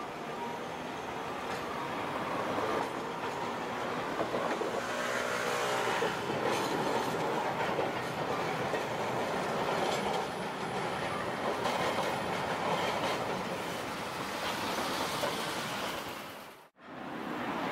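Tosaden streetcar running over the tracks through a street intersection, mixed with the noise of passing cars. The sound builds over the first few seconds and cuts out for a moment near the end.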